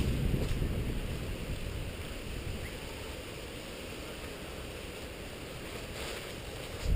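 Low rumbling noise on a body-worn camera's microphone, fading over the first couple of seconds to a quieter steady hiss.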